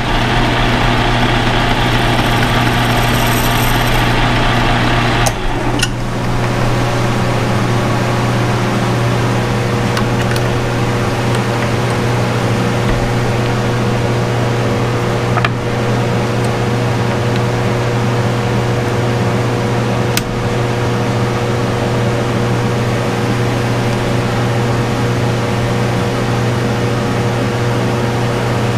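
Steady mechanical hum of a running machine, with a louder hiss over it for the first five seconds that then drops away. A few light clicks come through about ten, fifteen and twenty seconds in.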